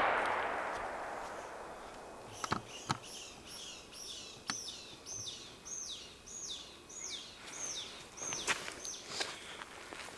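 The echo of a Benelli M2 shotgun blast rolls away and dies down over the first couple of seconds. Then a bird calls a quick series of about a dozen high, downward-slurred notes, roughly two a second, with a few sharp clicks in between.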